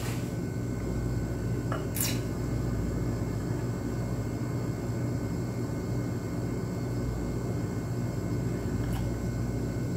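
Steady low room hum with two light clicks about two seconds in, as a glass is handled at the tap of a mini draught keg.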